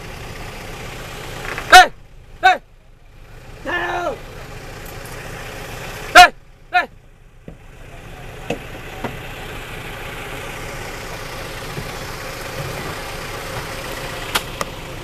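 Vehicle engine idling steadily, broken by a few short, loud pitched cries about two, two and a half and six seconds in, with a longer wavering cry near four seconds.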